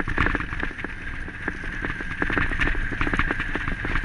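Irregular knocks and clattering over steady wind noise from a moving, shaking body-mounted camera.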